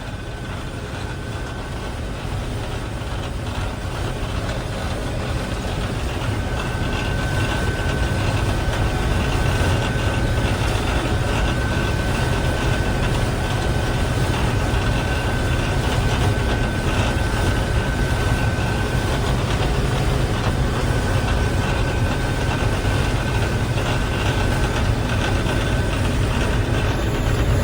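Small combine harvester running steadily while cutting wheat: a continuous low engine and machinery rumble that grows a little louder over the first several seconds, with a thin steady whine held through most of it.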